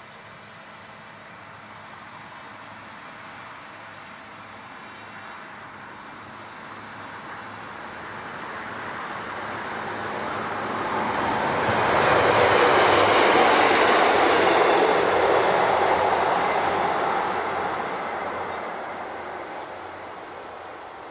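A train passing the lineside: it grows steadily louder, is loudest a little past halfway through, then fades away as it recedes.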